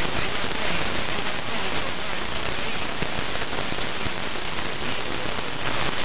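Steady hiss and crackle of radio static on the 11-metre CB band, coming through an SDR receiver's audio between transmissions. It gives way to speech just before the end.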